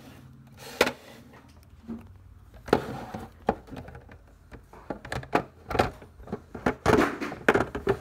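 Hard plastic knocks, clicks and scrapes as a battery is slid back into the rear battery bay of an APC Back-UPS Connect BGE90M and the casing is handled. The knocks are sparse at first and come thick and fast from about five seconds in.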